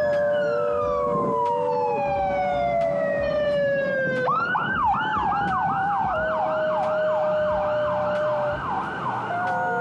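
Emergency vehicle siren passing on a city street: a long wail falling slowly in pitch, then about four seconds in it switches to a rapid yelp. Beneath it, long steady howls from an Australian Shepherd howling along with the siren.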